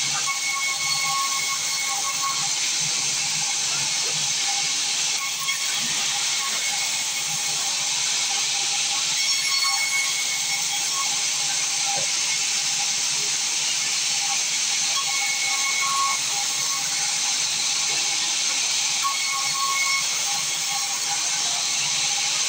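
Sawmill saw running steadily: a constant whine of several held tones over a hiss.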